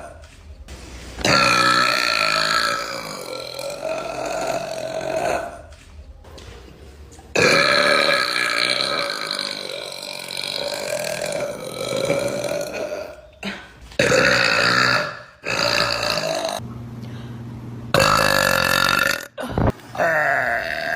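A young woman burping: a series of about six long, drawn-out burps, the longest lasting several seconds, with short breaks between them.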